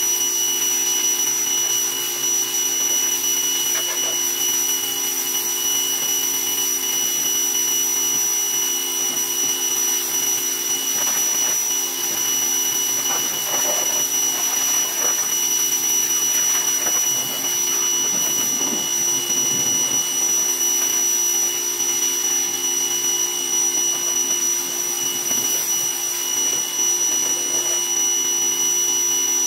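Greenworks 2000 PSI electric pressure washer running steadily, its motor and pump whining at a constant pitch. Under the whine is the hiss of the high-pressure water jet spraying against the truck, with some extra splashing and rushing midway.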